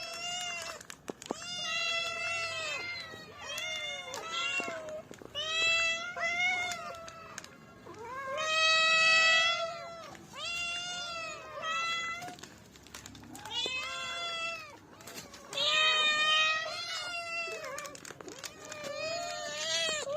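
A cat meowing over and over, about ten drawn-out meows at roughly two-second intervals, many rising and then falling in pitch.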